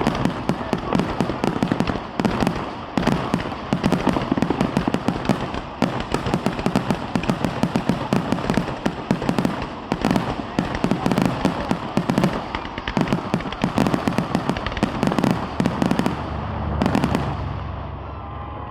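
Rapid, continuous barrage of aerial firework explosions, many bangs a second overlapping one another, dying away near the end.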